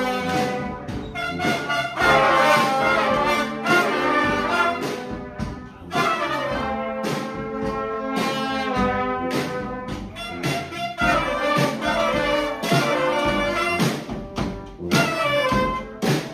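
Brass street band playing an up-tempo tune: trumpets and trombones in several parts over sharp, beat-like hits.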